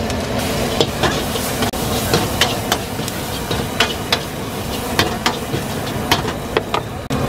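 Chicken noodles being stir-fried in a steel wok over a gas burner: a metal ladle clanks against the wok at irregular intervals over a steady hiss of sizzling and flame.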